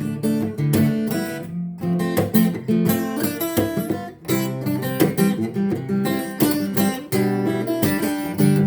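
Acoustic guitar played solo, plucked and strummed notes and chords.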